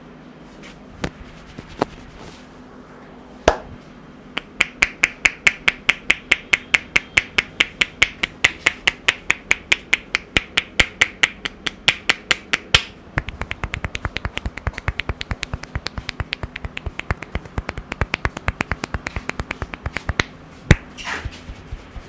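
Barber's hands working a client's head during an Indian head massage: a run of sharp snapping cracks, about five a second, from hair cracking, then a quicker run of softer, duller pats on the head. One loud crack comes near the end.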